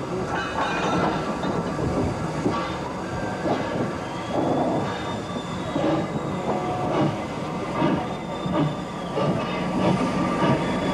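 Steam locomotive shunting wagons: a steady rumble of rolling stock with irregular clanks and knocks from buffers and couplings, and a faint high wheel squeal around the middle.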